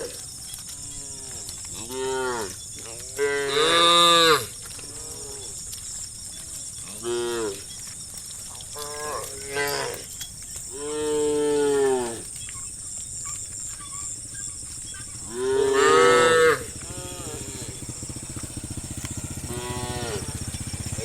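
Several cows mooing to one another, about eight calls of different pitches, some short and some long, the loudest about four seconds in and again near sixteen seconds. A steady high-pitched tone runs underneath throughout.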